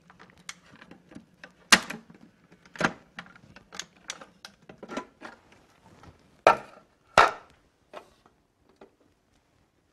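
Omega centrifugal juicer being opened: a series of sharp plastic clicks and knocks as the lid's latch arms are released and the lid is lifted off. The loudest knocks come about two seconds in, about three seconds in, and twice between six and seven and a half seconds.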